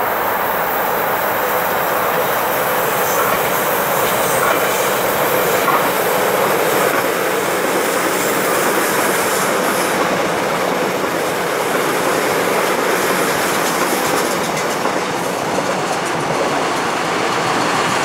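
Electric commuter train running past on curved track: a steady, loud rolling noise of wheels on rails.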